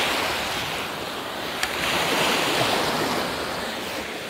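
Surf breaking and washing up a sandy beach, a steady wash that swells about two seconds in.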